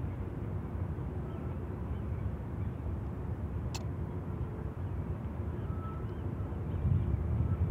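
A steady low rumble, with one sharp click about four seconds in as a small metal coffee pot is set down on the campfire.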